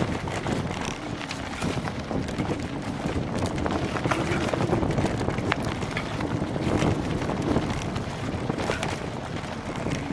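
Wind buffeting the camera's microphone while cycling into a headwind on a bumpy trail, with frequent clicks and knocks from the bicycle jolting over the ground.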